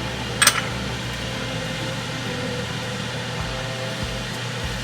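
A steady fan-like whir and hiss in a small kitchen, with one short, sharp clink about half a second in.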